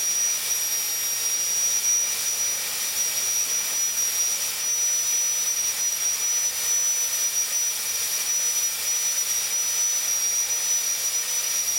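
High-speed air-turbine dental handpiece running with a steady high whine over air hiss, its bur shaping the occlusal surface of a composite build-up on an upper molar. The pitch dips slightly a few times.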